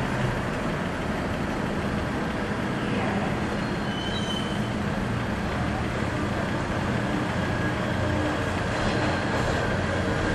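The AIDAblu cruise ship's machinery running as she comes into port: a steady low rumble with a hiss over it and a faint hum.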